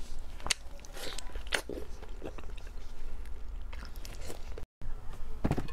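Close-miked eating sounds: biting and chewing pieces of braised pork, a string of scattered wet mouth clicks. The sound drops out for an instant shortly before the end.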